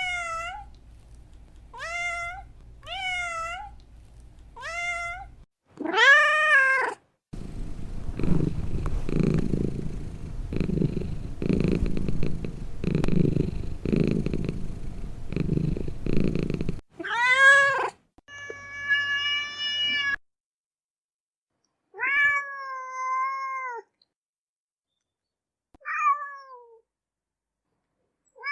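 A series of separate domestic cat and kitten meows, short high ones at first, then longer drawn-out ones. In the middle is about nine seconds of low, pulsing purring.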